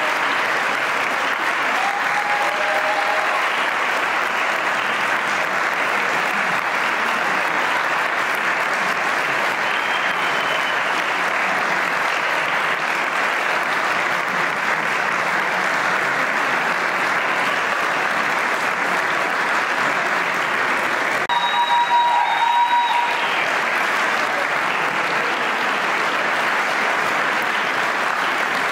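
Audience applauding steadily after a choir performance, a dense, even clapping that keeps up without letting off.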